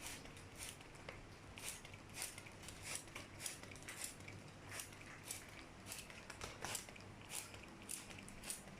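Cockatiels bathing: short, soft splashes and clicks, irregular, a few a second.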